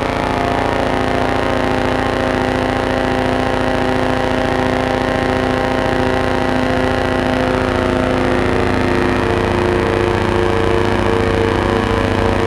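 Colossus Audio "The Hum" drone instrument sounding a dark, dense drone of many held tones, with reverb added. About two-thirds of the way through, a lower tone fades out and a higher, wavering tone comes up.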